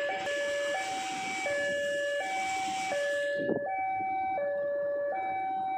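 Two-tone electronic warning signal, alternating between a low and a high tone about every three-quarters of a second, over a background rumble. A short knock about three and a half seconds in.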